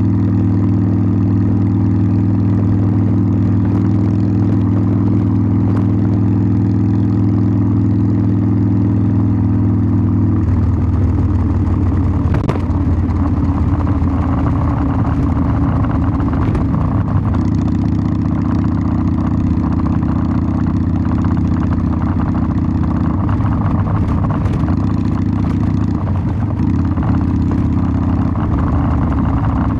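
Harley-Davidson Sportster 1200's V-twin engine and exhaust running on the ride. The note holds steady for about the first ten seconds, then roughens and shifts with the throttle amid wind noise, steadies again about halfway through, and wavers near the end.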